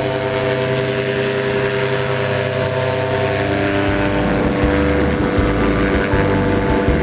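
Paramotor engine and propeller running steadily in flight, a continuous engine drone.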